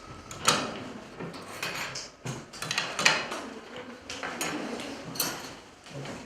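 Kitchen utensils clattering: spoons and dishes knocking and clinking irregularly, with two sharper knocks about half a second and three seconds in.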